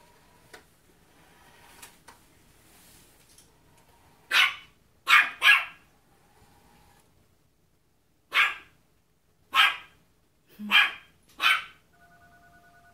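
Maltese puppy barking in fear at a toy car: seven short, high-pitched yaps, starting about four seconds in, the first three close together and the rest spaced a second or so apart.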